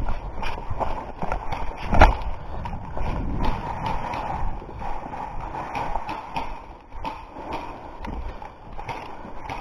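A run of irregular knocks and clicks over a rustling background, with one louder knock about two seconds in.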